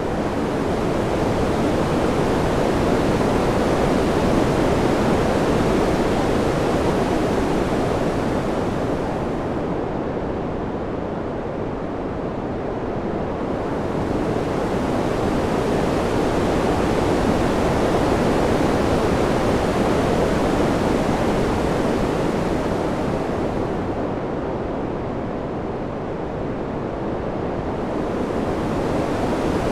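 Steady wind noise, a deep rushing hiss that swells and eases in slow gusts. Its upper hiss thins out in two lulls about thirteen seconds apart.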